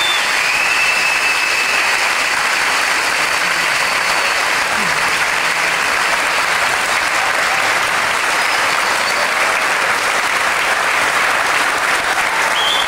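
Audience applauding steadily after a drum solo, with whistles near the start and again near the end.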